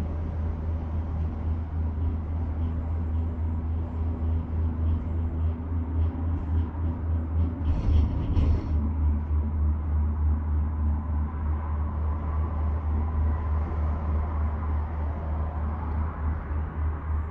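Steady low rumble and hum of a Doppelmayr eight-seat gondola cabin running along its haul rope, heard from inside the cabin. About halfway through there is a brief double rattle, as the cabin's grip rolls over a tower's sheave train.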